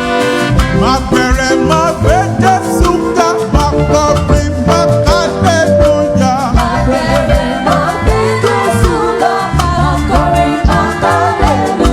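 A live gospel praise band plays an upbeat dance groove with a steady bass-and-drum beat under held keyboard chords, while a melodic lead line slides up and down in pitch.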